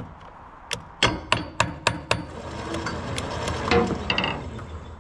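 Sharp metal taps on the end bell of a Warn M12000 winch's electric motor, about six in quick succession at three to four a second, struck with the winch control held down to jar loose sticking brushes. A swelling noise follows for about two seconds and then drops away; the owner concludes the motor's brushes are stuck.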